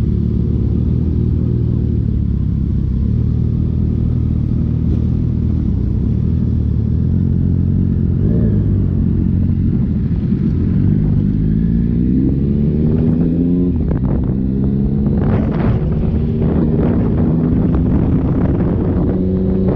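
Triumph Speed Triple three-cylinder motorcycle engine with an Akrapovic full exhaust, running under way at a steady pitch, then rising in pitch as it accelerates about ten seconds in. Gusts of wind hit the microphone in the last few seconds.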